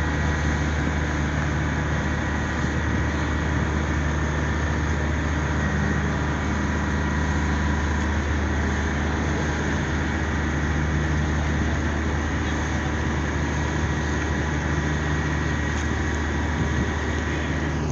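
A ship's diesel engine running steadily at low power, a constant low hum over a steady wash of noise, as a vessel manoeuvres to dock.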